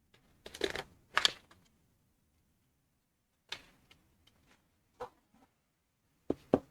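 A cardboard pen box being handled and opened: two short rustling, scraping sounds in the first second and a half, then scattered light clicks and taps, two sharper ones near the end.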